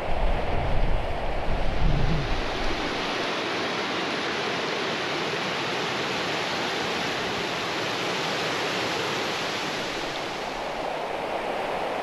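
A fast river rushing steadily over rocky cascades and small falls. A low wind rumble on the microphone fades out about three seconds in.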